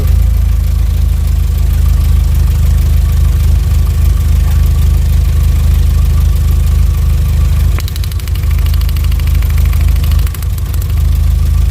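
Volkswagen Jetta Mk4's 2.0-litre four-cylinder engine idling unevenly with a cylinder misfire, dipping briefly twice near the end; the misfire is traced to a weak ignition coil, and a fine regular clicking is heard around the first dip.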